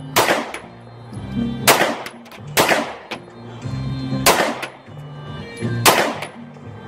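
Semi-automatic pistol fired five times, single shots spaced about one to one and a half seconds apart, each a sharp crack with a short tail. Music plays underneath throughout.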